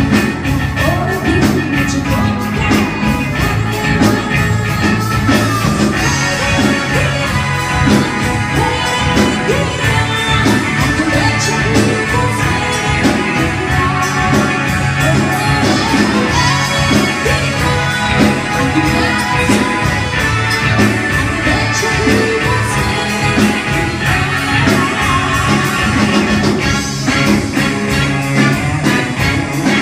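A woman singing into a microphone over loud amplified rock music.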